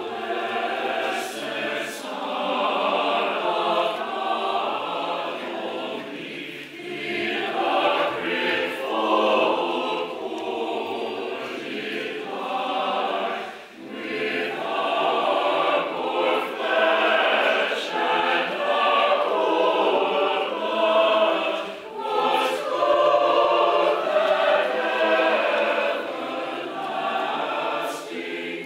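A church choir singing a Christmas carol, with brief pauses between phrases.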